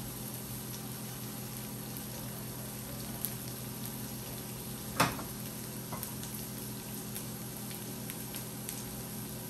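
Chopped onion, banana pepper and poblano pepper sautéing in butter in a pan on medium heat: a steady sizzle, with one sharp click about halfway through.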